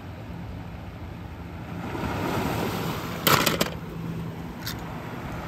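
Steady sea surf and wind noise on the shore, with a brief clatter of small toy cars being handled a little over three seconds in.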